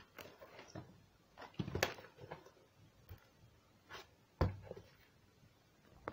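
Objects handled on a table: scattered light knocks and rustles, with two louder thumps about two and four and a half seconds in, the second as a cardboard tissue box is set down.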